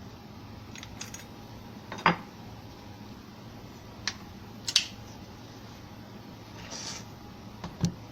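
A handful of sharp clicks and knocks, the loudest about two seconds in and two more close together near the middle, with a brief soft rustle near the end, over a steady low hum.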